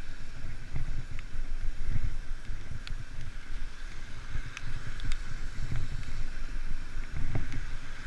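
Wind buffeting the microphone in uneven gusts of low rumble, over a steady hiss, with a few faint clicks, as while riding a bicycle.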